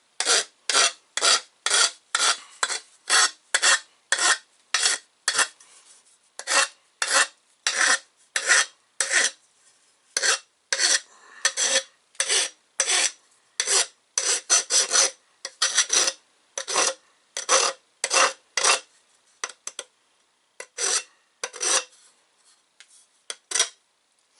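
Half-round bastard file rasping over the cut edge of an aluminium intercooler tube in short, rapid strokes, about two a second, with a brief pause past the middle, deburring the outside of the cut.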